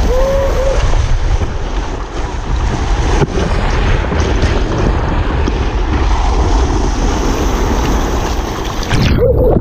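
Rushing water and wind noise on the microphone of a camera carried down a water slide on a mat, loud and steady, with a short whoop about half a second in. The rush drops away suddenly near the end as the ride finishes.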